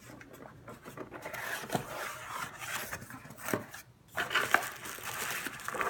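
A package being handled and opened: scraping and rustling, with a few sharp knocks.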